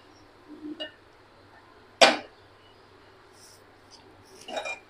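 A single sharp metal clank of steel cookware about two seconds in, with a short ring after it, and a fainter clink near the end.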